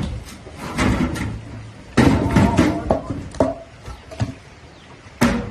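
Irregular knocks and clatters, a dozen or so sharp hits, loudest about two seconds in, with short bits of voice among them.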